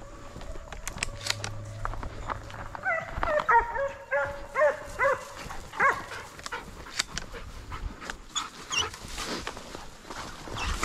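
Hunting hounds barking in a quick string of short yelps, about two a second, for a few seconds in the middle.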